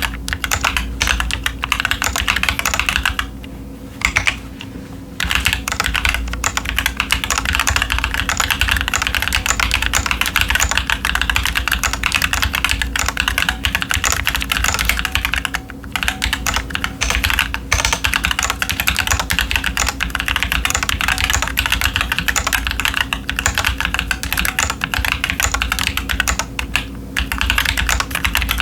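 Continuous fast typing on a stock Keychron Q10 mechanical keyboard with TTC Chaotic Panda tactile switches and doubleshot ABS Cherry-profile keycaps: a dense run of keystroke clacks, with a lull of under two seconds about three seconds in.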